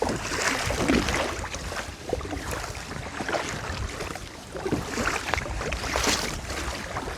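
Kayak paddle strokes splashing in the water, with water slapping the hull and wind on the microphone.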